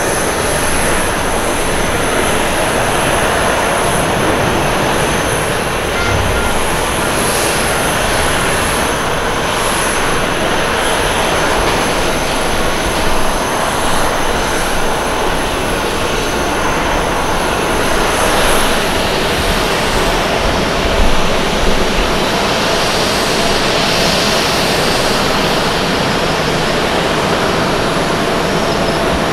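Jet engines of an Airbus A320 airliner running as it rolls down the runway just after landing, spoilers deployed: a steady, dense rush of jet noise with a thin high tone on top.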